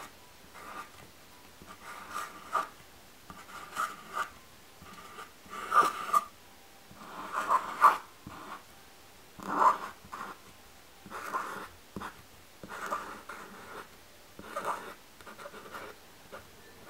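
Tip of a white marker drawn across a small chalkboard in short, separate strokes, one every second or two, as cursive letters are written.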